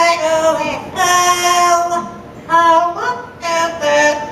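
Yellow-naped Amazon parrot singing a human song in mimicry: a run of held notes that step up and down in pitch, with short breaks between them.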